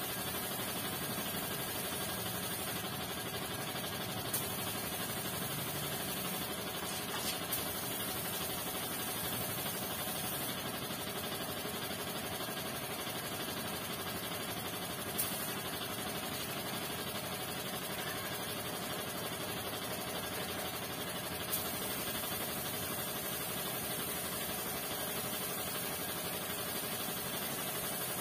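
Steady machine hum with an even hiss, unchanging throughout, with a few faint clicks about four, seven and a half, fifteen and twenty-one seconds in.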